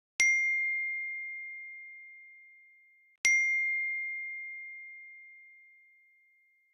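A clean electronic bell-like ding, sounded twice about three seconds apart. Each strike is a single clear tone that rings out and fades slowly, lasting about three seconds.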